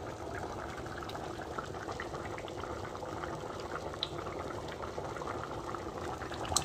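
Pot of thick githeri stew bubbling at a rolling boil on high heat: a steady churn of rapid small pops and bubbles. One sharp click near the end.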